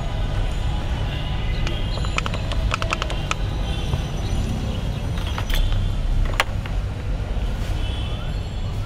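Steady low rumble of street traffic. Over it, a quick run of light clicks and clinks comes about two to three and a half seconds in, and two sharper clicks follow later, from the masala jar and spoon being handled at the stall.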